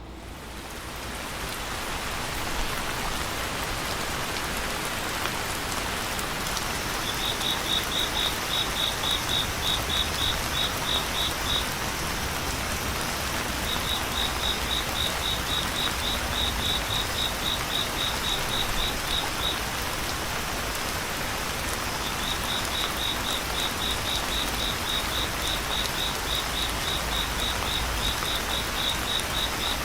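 Steady rain, an even hiss that fades in over the first two seconds. Over it a high, rhythmic chirping call of about four pulses a second comes in three long runs, with a faint steady high whine behind it.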